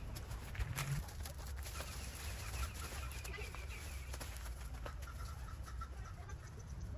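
A bird calling in quick runs of short notes, over a low steady rumble, with a few sharp clicks.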